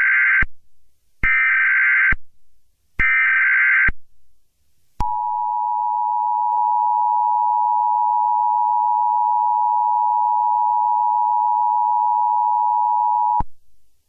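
Emergency Alert System header: three short buzzing digital data bursts of about a second each, the first already under way, then the EAS two-tone attention signal, a steady harsh dual tone held for about eight seconds that cuts off abruptly near the end.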